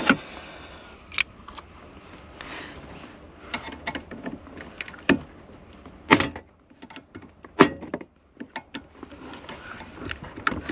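Hand tools and loose parts being handled while dismantling a car: a string of irregular sharp clicks, clinks and knocks, with some rustling between them.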